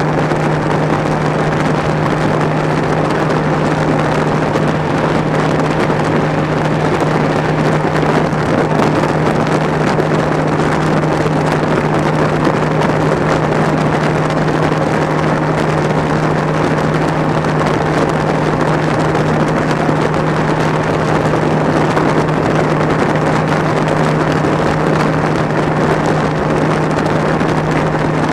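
Bass boat running at top speed: a steady, unchanging engine drone under a continuous rush of wind on the microphone.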